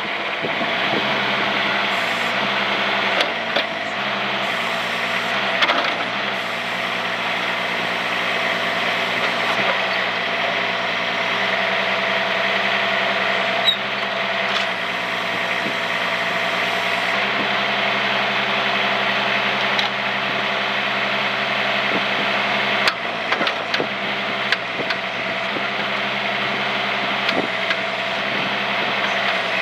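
A 2024 AGT NT18K mini excavator's engine running, with a steady high whine over it and its pitch shifting a few times. A few sharp knocks or clanks sound along the way.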